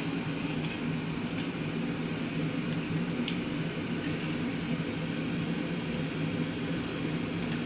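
Steady low mechanical hum, like a fan or small motor, with a few faint clicks.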